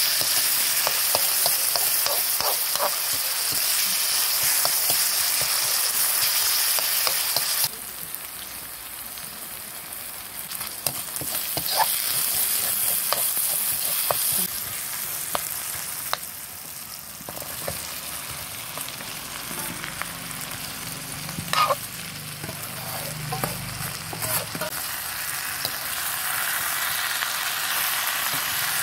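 Oil sizzling in a wok as a tomato and onion paste is fried and stirred with a metal spatula, the spatula scraping and clicking against the pan. The sizzle is loud at first, drops suddenly about eight seconds in to a quieter frying with occasional sharp knocks, and grows louder again near the end.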